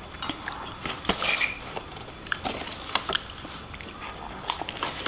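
A person chewing and biting food with a meal of fried rice and chicken, giving irregular small crunches and wet clicks.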